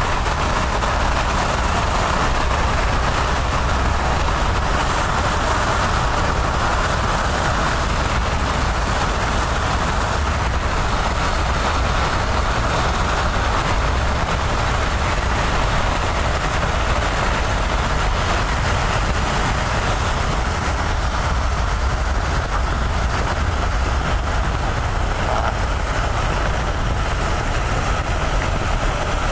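Strong wind on the microphone near a tornado: a constant rushing noise with a low rumble that holds steady throughout.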